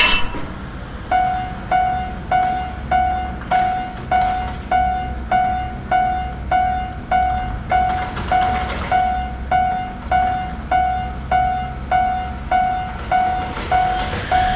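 Japanese railroad crossing warning bell ringing its repeated 'kan-kan' ding, about five strikes every three seconds, starting about a second in after a sharp click, over a low rumble that fits an approaching train.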